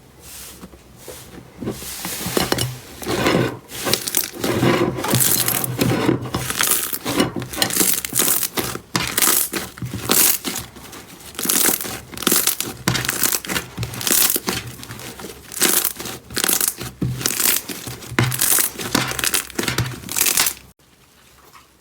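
Slime, which she takes for guar-gum slime, being squished and stretched by hand: a run of squishes about two a second, starting about two seconds in and stopping abruptly near the end.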